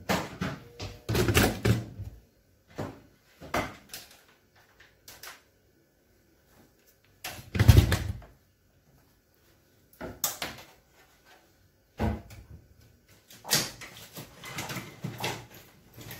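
Irregular knocks, bumps and clatter of things being handled in a kitchen, with near-silent gaps between them and one heavy thump about halfway through.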